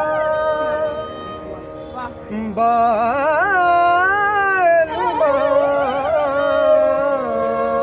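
A man singing a slow folk melody with a bowed sarangi accompanying him: long held notes that waver and slide over steady ringing tones. A quieter stretch comes about a second in, and the melody swells loudest around the middle.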